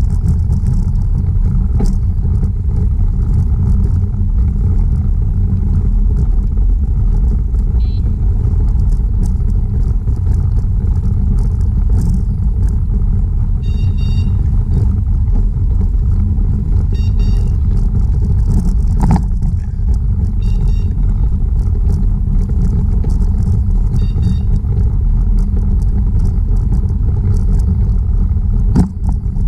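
Wind buffeting an action camera's microphone while riding a bicycle, a steady low rumble of rushing air.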